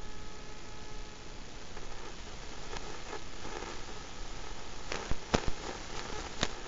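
Steady static hiss with scattered crackles and several sharp clicks and pops about five to six seconds in.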